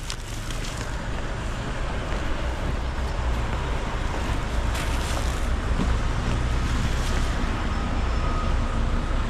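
Steady low rumble of road traffic, growing slightly louder over the first couple of seconds.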